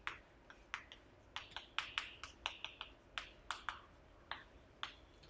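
Chalk writing on a chalkboard: a faint, irregular run of sharp taps and short scratchy strokes as the chalk strikes and drags across the board.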